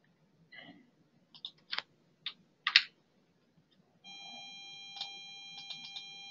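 Scattered computer mouse and keyboard clicks, about half a dozen in the first three seconds. About four seconds in, a faint steady whine of several fixed pitches starts, with a few lighter clicks over it.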